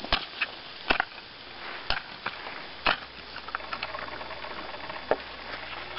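A hand digging tool striking into garden soil in four strokes about a second apart, followed by lighter knocks and scraping.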